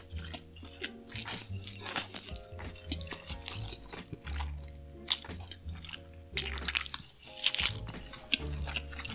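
Close-miked eating sounds: biting and chewing meat from a chicken leg in red sauce, with many short, sharp, wet clicks and smacks. Background music with held notes and a bass line plays underneath.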